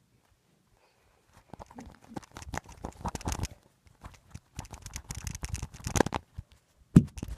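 Crackling, scraping rustle of bedding and fabric rubbing against a phone's microphone as the phone is handled, in two spells, with a sharp knock near the end.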